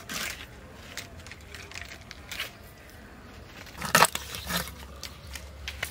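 Large snakehead fish being cut into round steaks on a boti, the upright fixed curved blade: a few sharp crunching cracks as the blade goes through the scaled skin and backbone, the loudest about four seconds in.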